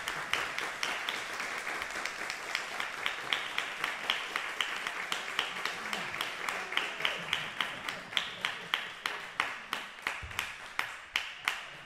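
Audience applause, with sharp taps at a steady pace of about four a second running through it and fading away near the end.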